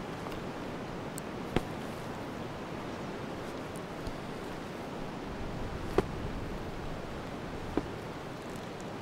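Steady winter wind ambience, an even rushing noise. Three short sharp clicks or snaps come through it: about a second and a half in, about six seconds in, and near the end.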